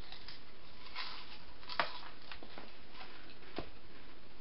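A few faint, scattered clicks or taps over a steady background hiss, the clearest a little under two seconds in.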